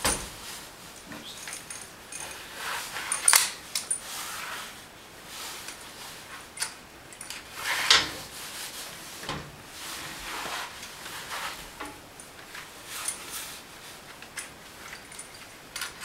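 Appliance hand truck's webbing strap being pulled and worked through its metal ratchet buckle to cinch a washing machine to the dolly: irregular metal clicks and jingles with the webbing sliding, loudest about 3 and 8 seconds in.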